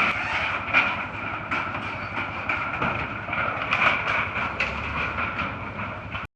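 Loud, steady rushing noise with scattered sharp knocks through it, cutting off suddenly near the end.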